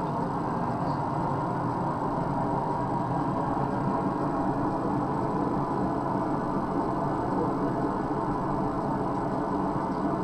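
Steady, unbroken mechanical drone of forge machinery running, a constant hum with no strikes or changes in level.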